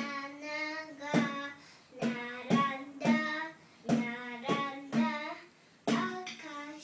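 A young girl singing a tune while hitting drum pads with a stick, the sharp taps coming at an uneven beat of roughly one or two a second under her voice.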